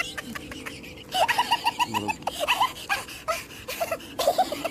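Birds chirping in short repeated calls, with a quick run of about six even notes about a second in. Scattered sharp clicks come over them.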